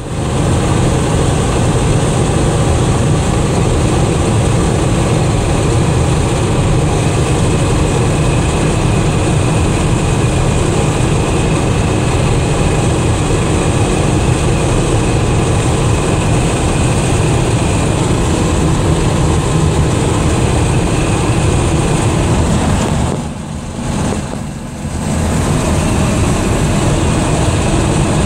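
Steady in-cab driving noise of a 1979 Dodge D300 pickup with a 360 four-barrel V8 at road speed: engine rumble blended with tyre and wind noise. It drops briefly twice about 23 seconds in.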